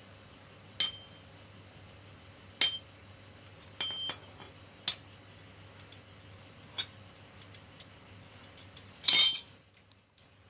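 Sharp metal clinks of tools and screws being handled while the screws holding a sewing machine's clutch motor are taken out. About five single clinks come a second or two apart, then a longer, louder metallic rattle near the end, over a faint steady hum.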